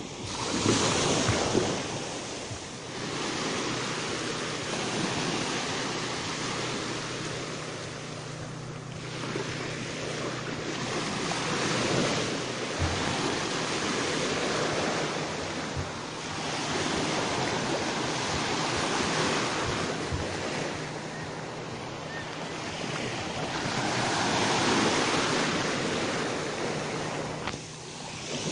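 Surf washing in and out, rising and falling every few seconds, with wind buffeting the microphone. A faint steady low hum runs underneath.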